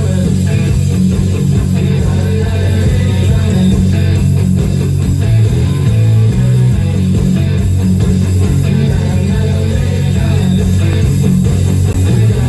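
Loud, steady music with plucked guitar over bass guitar.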